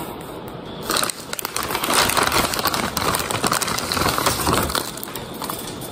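Plastic bag of frozen chicken patties crinkling and crackling as it is handled, starting about a second in.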